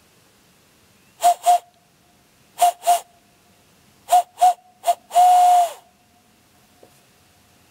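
Barred owl call blown through cupped hands, a breathy hoot at one steady pitch. It comes as two pairs of hoots, then three quicker ones, then a longer last hoot that drops in pitch as it ends, the "who cooks for you, who cooks for you all" rhythm.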